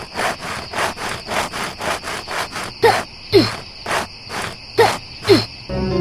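Crickets chirping: a continuous high trill with a steady pulse of about three to four chirps a second, and four short falling calls in the second half.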